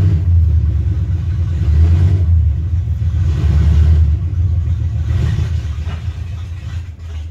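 A nearby car engine running with a steady low rumble that wavers in loudness and stops abruptly at the end. It is a neighbour's car that sounds as if it needs a tune-up.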